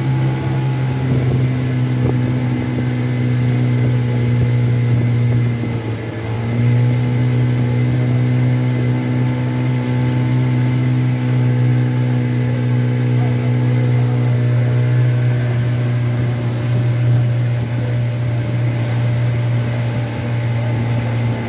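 Small motorboat's engine running steadily with the boat under way. About six seconds in it eases off briefly, its pitch dipping, then picks up again.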